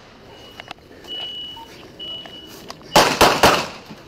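Handgun gunfire at close range: about three seconds in, a rapid volley of about four shots within half a second. An intermittent high steady beep sounds on and off underneath.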